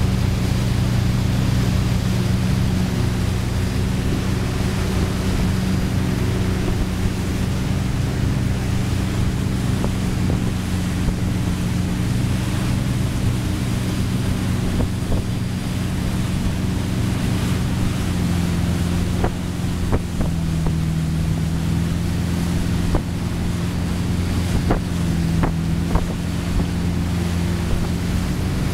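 Tow boat's engine running steadily under load as it pulls a wakeboarder, over the rush of its wake and wind on the microphone. The engine note dips briefly twice in the second half, and a few sharp knocks come in the last third.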